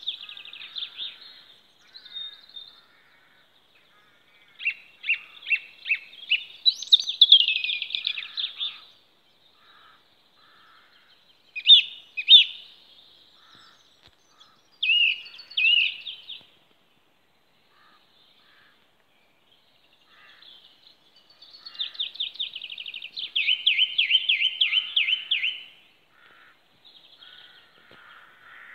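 Song thrush singing: short bursts of sharp, repeated notes separated by pauses of a second or more, the longest a fast run of repeated notes a few seconds before the end.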